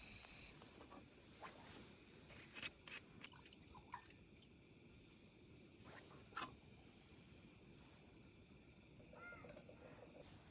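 Near silence: a faint steady high-pitched hiss with a few soft clicks and taps scattered through.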